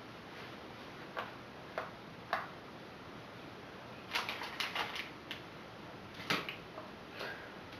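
Hands working in hair and adjusting metal wave clips: scattered short clicks and rustles, with a quick run of them about four seconds in.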